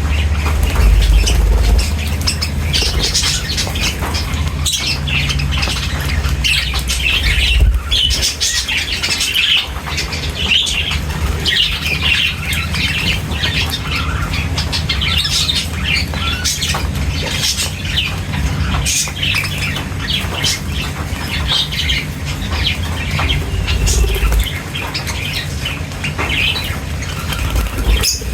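A flock of small birds chirping and squawking, many calls overlapping, with wings flapping, over a steady low rumble.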